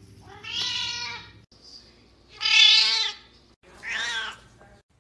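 A cat meowing three times, each call under a second long, the middle one loudest.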